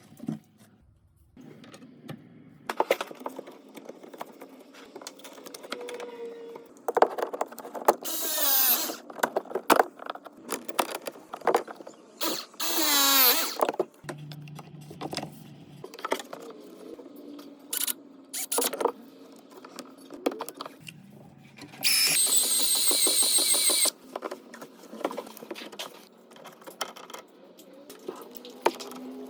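Plumbing tool work: scattered knocks, clicks and clanks, broken by several short bursts of a power drill's whine. The longest burst runs about two seconds, about three quarters of the way through.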